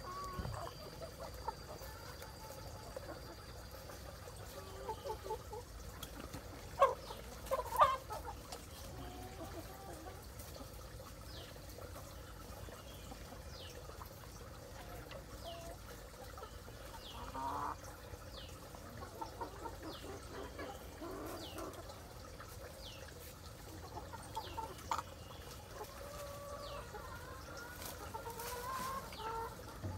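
Free-ranging chickens clucking on and off, with two louder calls about seven and eight seconds in. Short high, falling chirps come about once a second in the middle stretch.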